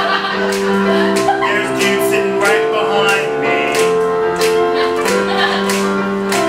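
Live band music: long held notes changing every second or so, over a steady beat.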